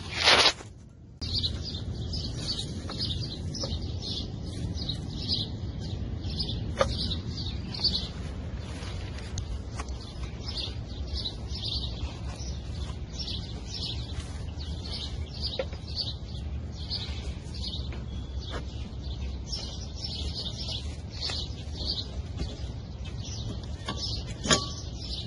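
Small birds chirping in quick, irregular bursts over a steady low rumble. A brief loud rush of noise comes right at the start, and a few sharp clicks stand out, the loudest near the end.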